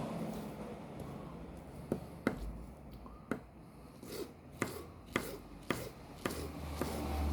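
Knife slicing a peach on a cutting board: a series of sharp knocks as the blade meets the board, about seven strokes at uneven spacing.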